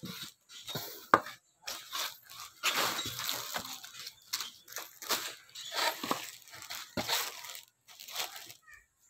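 Clear plastic packaging crinkling and rustling in irregular crackles as an embroidered shirt is pulled out of its wrap.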